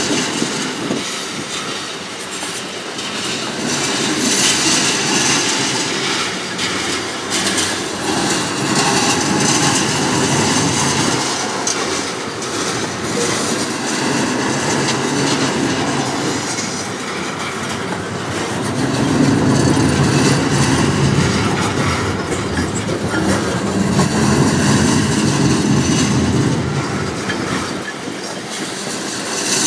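Freight train of tank cars rolling past: a steady rumble of steel wheels on rail with clicking over the rail joints, growing louder and deeper about two-thirds of the way through.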